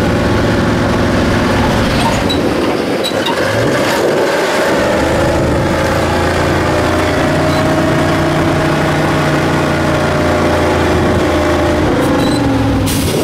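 ZIL-131 6x6 truck's engine running hard under load as it pulls through mud and up a steep bank, with a steady drone whose pitch rises a little about halfway through.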